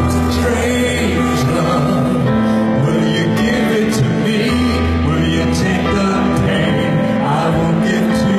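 Live concert ballad: a male singer's slow vocal through the PA over sustained low accompanying chords, heard in a large venue.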